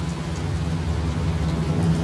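Rain falling on a car over the low, steady rumble of the car driving.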